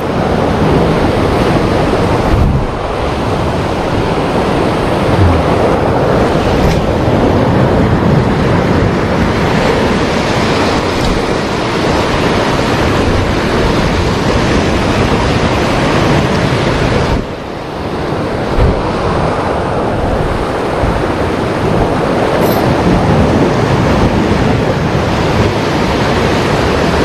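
Heavy high-tide surf breaking continuously against the shoreline, a loud, steady wash of waves with wind on the microphone.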